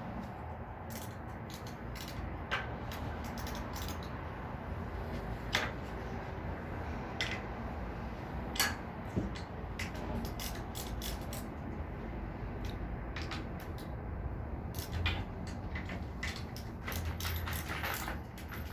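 Ratchet wrench clicking in short irregular runs as the bed frame's bolts are tightened, over a steady low hum.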